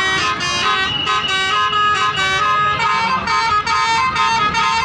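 Basuri telolet horn on a tour bus playing a rapid melody: loud multi-tone horn notes stepping from pitch to pitch without pause.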